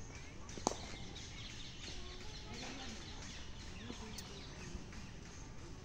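Faint outdoor background of distant voices and bird calls, with one sharp click just under a second in.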